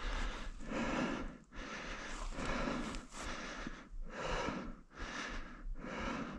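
A person's heavy breathing, deep breaths in and out about once a second: out of breath from climbing a steep slope on foot.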